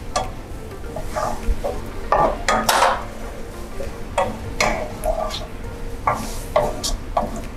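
A wooden spatula scrapes and knocks against a granite-coated non-stick saucepan in irregular strokes, stirring chopped onion in melted margarine. The frying sizzles low underneath, the onion being sautéed over a small flame until soft and fragrant.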